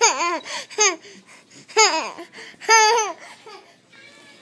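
A baby laughing in high-pitched bursts: a quick run of short laughs at the start, then two longer laughs about two and three seconds in, dying away near the end.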